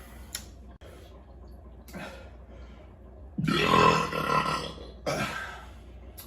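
A loud, drawn-out beer burp starting about three and a half seconds in, followed a second later by a shorter, fainter sound.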